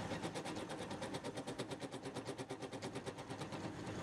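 Milling machine plunge-cutting into a metal block with a freshly sharpened end mill: a fast, even rattle of cutting ticks, about ten a second, over the steady running of the machine, dying away just before the end. The clean, regular cut is the test of the newly ground end cutting edges.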